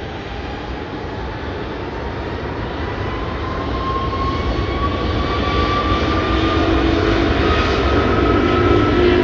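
Airbus A330 twin jet engines spooling up on the takeoff roll: a steady roar growing louder, with a whine rising in pitch as the airliner accelerates down the runway.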